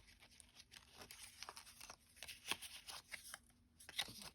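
Faint rustling and light scattered taps of paper: die-cut cardstock ephemera pieces being handled and set down one after another.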